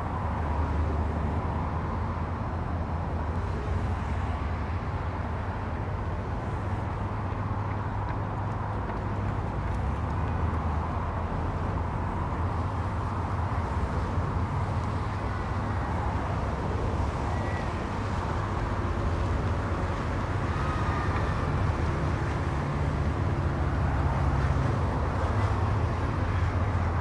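Steady low rumble of vehicle traffic on a suspension bridge deck.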